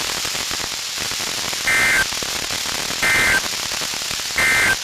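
NOAA Weather Radio SAME end-of-message tones: three short data bursts about a second apart over steady radio static, the digital code that closes a weather radio test message.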